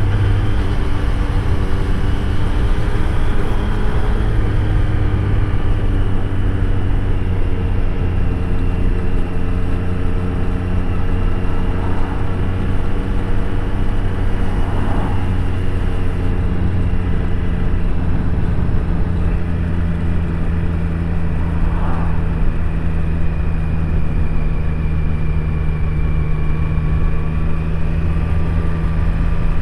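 Triumph Street Triple 765 RS's three-cylinder engine running steadily from onboard the moving motorcycle. The engine note shifts in pitch a couple of times.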